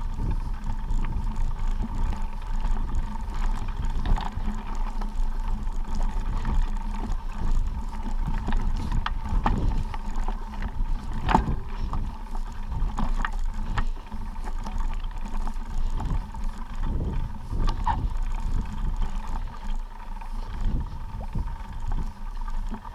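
Wind buffeting a moving hiker's camera microphone, a continuous low rumble with a few scattered knocks and scuffs from walking on the trail.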